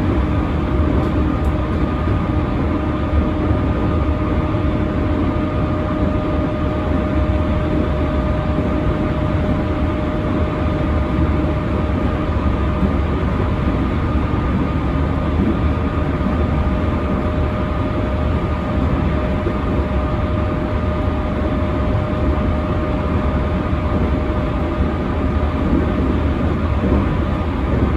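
Inside an unrenovated JR E231 series 1000 electric motor car running along the line: a steady rumble of wheels on rail with a strong low drone, which this car is known for. Over it sit steady whining tones that fade out about halfway through.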